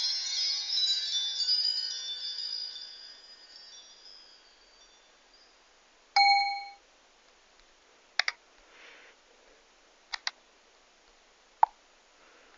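Notification tones from a Vodafone Smart 2 phone's speaker: a chiming tone fading out over the first few seconds, then a short single ding about six seconds in. A few sharp clicks follow, two pairs and then a single one.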